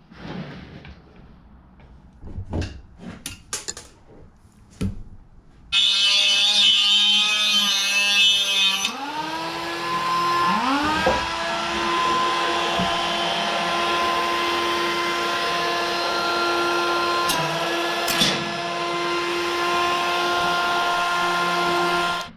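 A few light handling clicks, then a handheld rotary tool with a cutoff wheel starts about six seconds in and cuts into the rusted, stripped exhaust bolts: a steady high whine with a grinding hiss. It spins up again twice, around nine and eleven seconds, and cuts off suddenly near the end.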